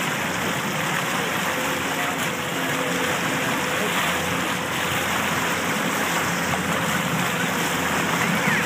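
Motorboat under way at towing speed: a steady rush of churning wake water with a low engine hum underneath.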